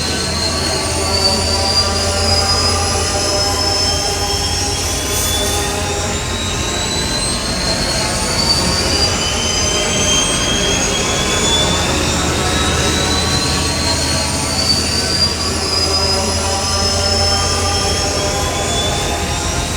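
Close-up engine hum of the X-34 landspeeder, a film sound effect. It is a steady low drone with high whining tones that slowly climb in pitch and start again, looping without change in loudness.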